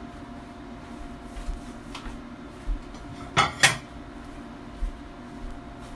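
Kitchen handling sounds: a few light knocks of a serving spoon in a plastic steamer bowl, then about three and a half seconds in a sharp double clack of a cupboard and a plate being taken out.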